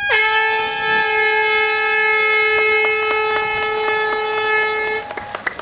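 A starting horn sounding one long steady blast of about five seconds, which signals the start of an open-water swimming race. It cuts off sharply, with faint splashing under its second half.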